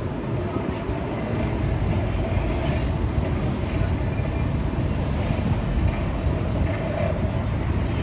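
Busy city street ambience: a steady low rumble of traffic with faint voices of passers-by.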